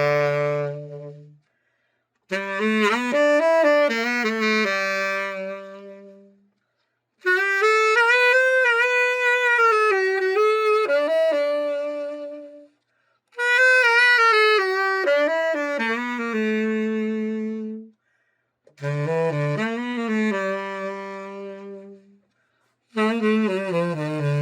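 Selmer Mark VI tenor saxophone, freshly overhauled, played solo in five short melodic phrases with vibrato, each separated by a brief pause.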